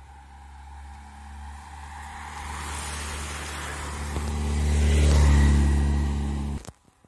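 A group of racing bicycles rushes past, followed closely by a race motorcycle whose engine is loudest as it goes by about five seconds in. The sound cuts off suddenly near the end.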